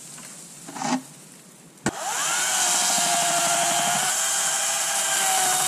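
A sharp click about two seconds in, then loud machinery running steadily: a rushing noise with a whine that rises briefly and then holds.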